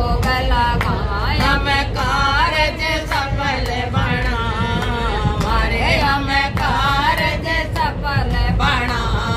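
Hindi devotional song (bhajan) with a sung vocal melody over a percussion beat and a heavy low bass.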